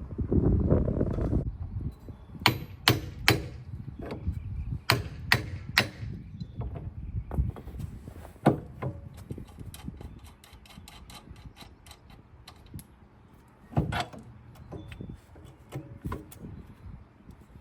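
Hand tools working on a car's front suspension: a low rumble at first, then sharp metal knocks, twice in quick runs of three, with single knocks later. In the middle comes a stretch of rapid light clicking.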